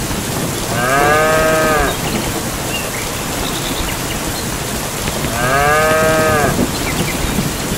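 Steady rain with a cow mooing twice, each moo a bit over a second long, about four seconds apart.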